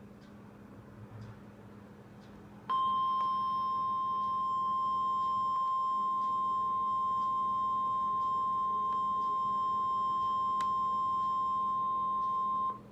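NOAA Weather Radio warning alarm tone: a single steady 1050 Hz tone that begins about three seconds in, holds for about ten seconds and cuts off sharply. It signals that a warning message follows. Before it there is only a faint low hum.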